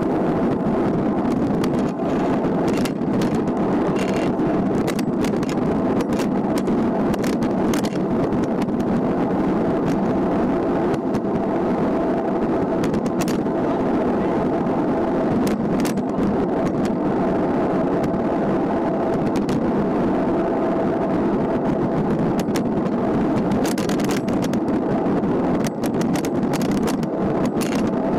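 Steady rush of wind and tyre noise from a road bike rolling fast on asphalt, heard through a bike-mounted camera's microphone, with a faint steady hum and frequent small sharp clicks over bumps in the road.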